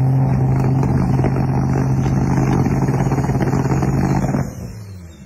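Dodge Viper's V10 engine revved hard and held at a steady high pitch, then let off about four and a half seconds in, dropping to a lower rumble.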